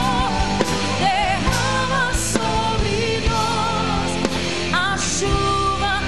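Live gospel worship song: a woman sings long notes with vibrato into a microphone over a band with electric guitar and steady percussion strokes.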